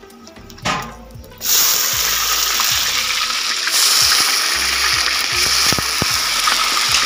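Hot oil in an iron wok sizzling around dry red chillies and spices, with a few faint crackles at first; about a second and a half in a loud, steady sizzle starts suddenly as more food goes into the hot oil.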